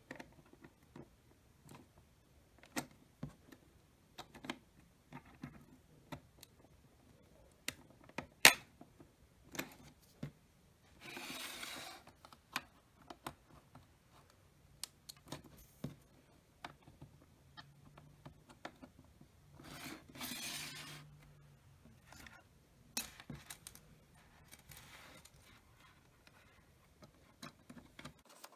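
Lego Technic plastic pieces being handled and pressed together: scattered sharp clicks and snaps, one much louder snap about eight seconds in, and two rustling, scraping stretches of about a second each, around a third and two thirds of the way through.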